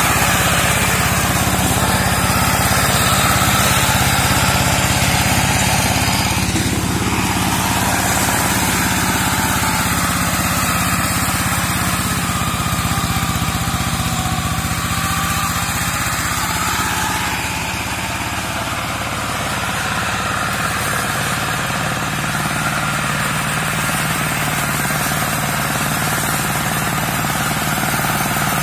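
Engine of a two-wheel walk-behind hand tractor rigged as a land-clearing mower, running steadily as it is driven through undergrowth.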